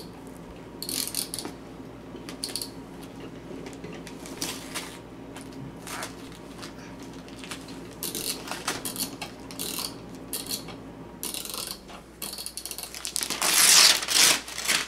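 Christmas wrapping paper being crinkled and torn off a gift box by hand, in short scattered rustles, with a longer, louder tear near the end.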